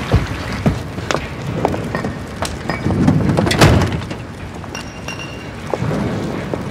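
Yard ambience: scattered sharp knocks and clinks, like metal and wood being handled, over a low steady rumble that swells about halfway through.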